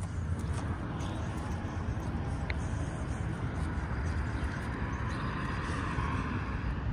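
Road traffic noise from a street: a car's tyres swelling past about five to six seconds in, over a steady low rumble.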